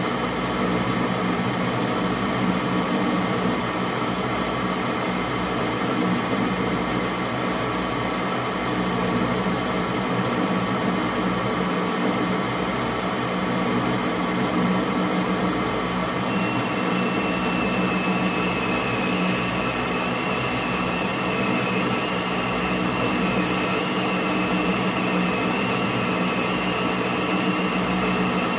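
Metal lathe running steadily with a boring bar in the bore of a bullet mold, a machine hum with several steady tones. A thin high whine and hiss join about halfway through and hold to the end.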